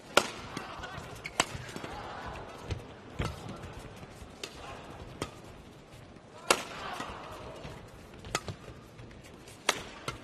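Badminton rackets striking a shuttlecock in a fast doubles rally: about eight sharp cracks at uneven intervals of one to two seconds. The loudest come just after the start and about two-thirds through.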